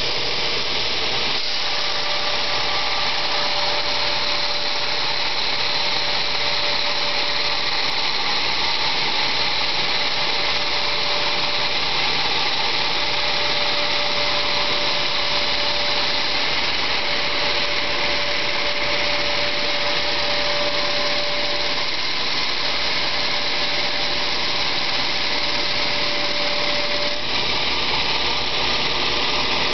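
Belt grinder running steadily while a forged steel katana blade is rough-ground against its 50-grit belt, a constant grinding noise with a steady tone over it.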